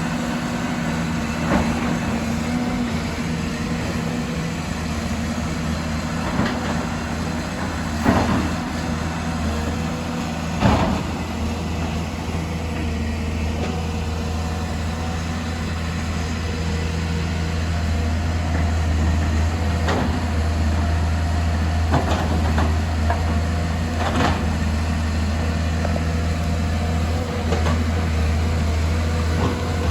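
Excavator's diesel engine running steadily with a low hum, broken by a handful of sharp knocks and clanks from the digging work, the two loudest close together about a third of the way in.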